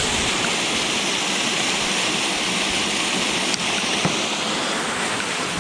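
Small waterfall rushing steadily, an even hiss of falling water.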